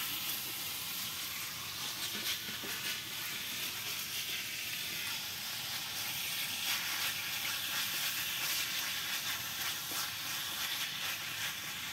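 Meat sizzling as it is stir-fried in a wok on a portable gas stove, stirred with a spatula: a steady frying hiss.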